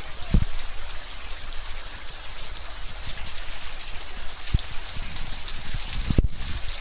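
Water dripping and trickling from a moss- and fern-covered rock overhang into a shallow pool: a steady, high patter, with a few soft low thumps.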